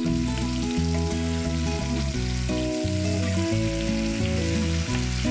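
Marinated chicken pieces sizzling steadily as they fry in oil in a pan, under background music.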